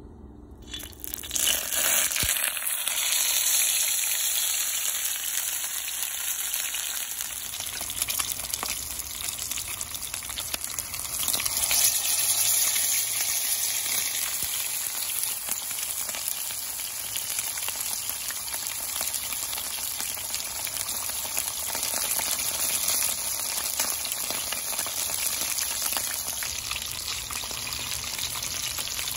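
Whole croaker fish frying in hot oil in a shallow pan: a steady sizzle with many small pops. The sizzle starts about a second in as the fish goes into the oil and surges louder again around twelve seconds in.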